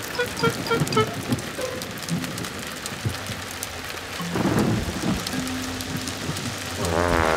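Steady heavy rain, with a low rumble of thunder about four and a half seconds in. A few short plucked music notes sound in the first second or so, and a wavering pitched sound comes in near the end.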